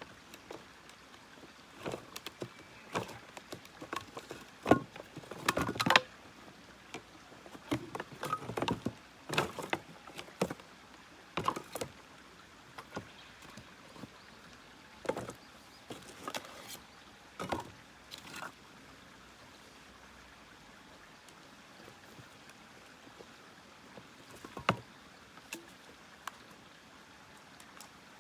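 Irregular clicks, knocks and short rustling scrapes of firewood, kindling and fire-starting gear being handled. They are busy for the first two-thirds, then thin out to a few scattered clicks.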